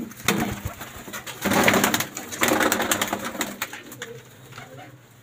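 Domestic fancy pigeons cooing, with two loud bursts of wing-flapping, about one and a half and two and a half seconds in, as birds flutter out of the loft.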